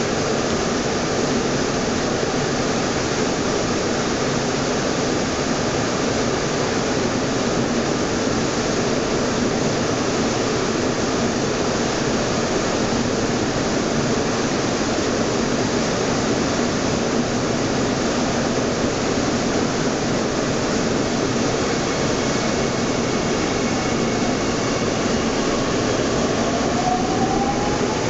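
Steady, loud running noise heard inside a moving AC09B metro car, the rumble of wheels on rail filling the cabin. Near the end a faint whine rises in pitch.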